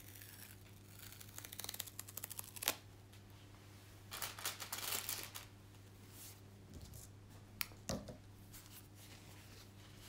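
Plastic wrapping rustling and crinkling in a few short spells, with a couple of sharp clicks near the end, over a low steady hum.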